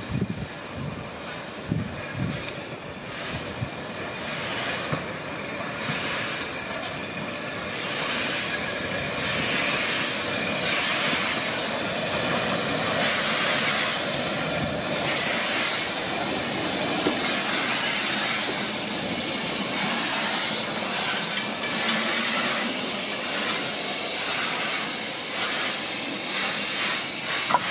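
1860s open-cab steam locomotive working slowly, its exhaust beats coming at an even pace. From about eight seconds in, a steady loud hiss of escaping steam sets in, and the beats still come through it.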